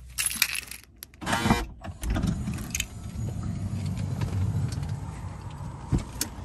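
A minivan's side sliding door being opened, with a short rattle and handling noise, followed by a steady low rumble and a thump near the end.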